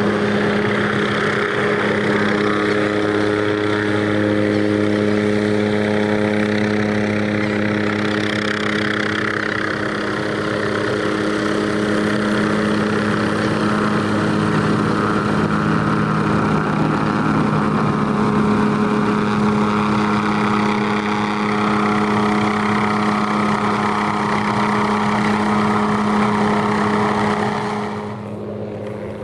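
Small turbine helicopter of the MD 500 type hovering low and close, its rotor and engine making a loud, steady hum with a constant pitch. Near the end it turns noticeably quieter.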